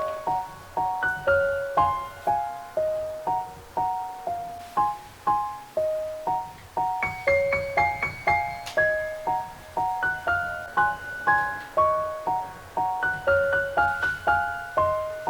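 Background music: a gentle piano melody of short, evenly paced notes, several per second.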